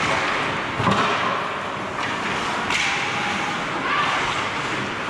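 Ice hockey play heard from behind the goal: skate blades scraping the ice and sticks and puck knocking, with a sharp thud about a second in and a short hiss of ice spray a little before the three-second mark.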